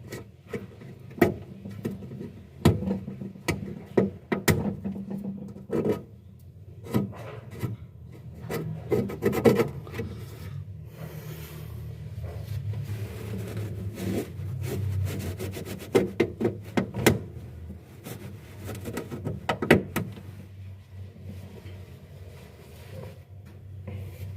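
Irregular knocks, clicks and rubbing or scraping noises from hand work, over a steady low hum.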